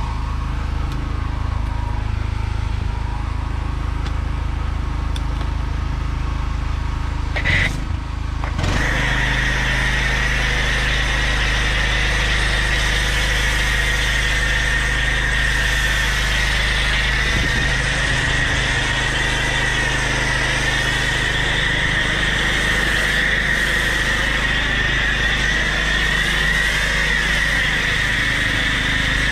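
Böhmer-AG WX3800K portable petrol generator running with a steady hum. About eight seconds in, a Karcher K4 pressure washer starts spraying snow foam through a foam lance, adding a steady hiss that lasts from then on.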